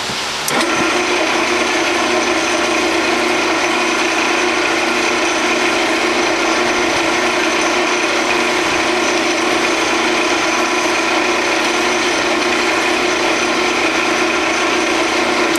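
Grizzly G0602 10x22 bench lathe starting up about half a second in and running at a steady speed with an even whine from its motor and gear train, while a hand file is held against the spinning aluminium workpiece to take off the sharp edges.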